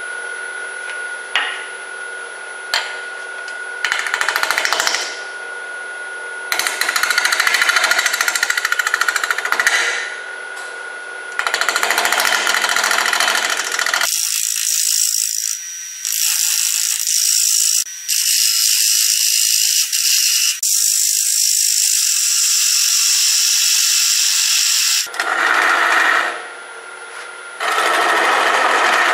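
Turning tool cutting into an out-of-round walnut-and-resin segmented bowl blank spinning fast on a wood lathe, in repeated rough passes a second to several seconds long, over the steady hum of the lathe's motor.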